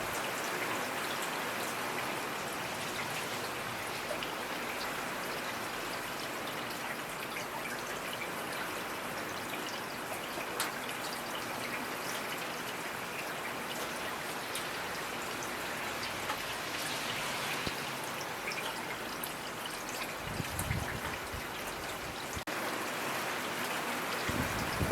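Steady rainfall, a constant hiss with individual drops heard as scattered sharp ticks. Two soft low thuds, about 20 seconds in and again near the end.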